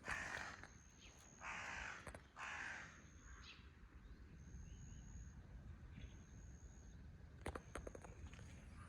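A crow cawing: three harsh caws in the first three seconds, each about half a second long. After them come a few faint clicks, and a high thin tone that comes and goes.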